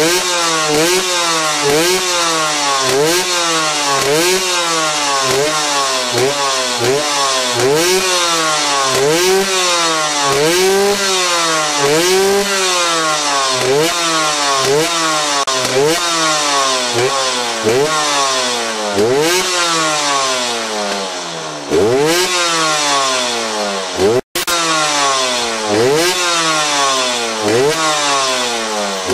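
Yamaha DT-R 125 SM's two-stroke single-cylinder engine revved over and over, the pitch climbing and falling about once a second, with a brief cut to silence near the end.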